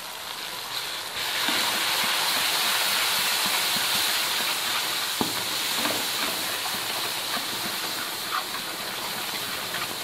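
Spice masala with salt and green chillies sizzling in hot oil in a large steel wok, stirred with a wooden spoon. The sizzle grows louder about a second in and then holds steady, with an occasional light knock of the spoon.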